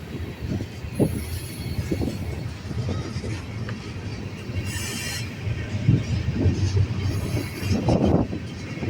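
Freight train rolling past: a low rumble with irregular wheel knocks and clacks, and brief high-pitched wheel squeals about a second in and again around five seconds in.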